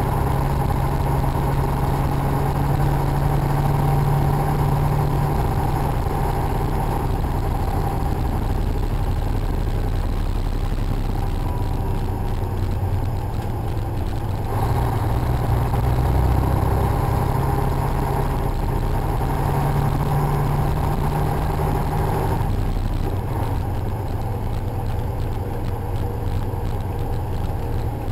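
Semi truck's diesel engine and road noise droning steadily inside the cab at highway speed, picked up by a built-in microphone. The engine's tone shifts about halfway through and drops a little near the end.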